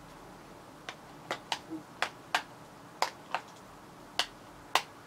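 Sharp clicks and taps as an iPhone 12 Pro Max is handled and turned in the hand, about nine in all, irregularly spaced and some in quick pairs.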